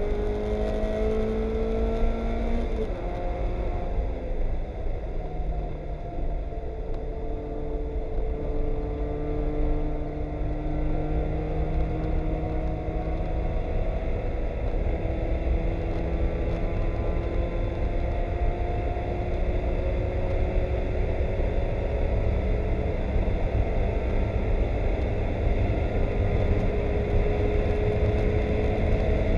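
Mazda Miata race car's four-cylinder engine heard from inside the cabin at racing speed on a soaking wet track, over a steady wash of tyre spray and road noise. The revs drop sharply about three seconds in, then climb slowly for most of the rest.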